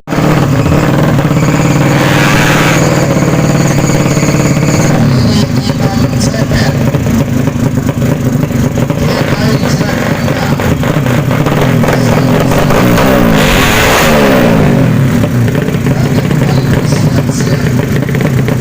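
Tuned 200 cc underbone (bebek) drag-bike engines running loudly and revving. About two-thirds of the way in, their pitch slides down and climbs again.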